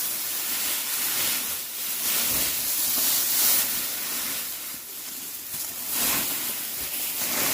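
Loud hissing, rushing noise that swells and eases every second or so.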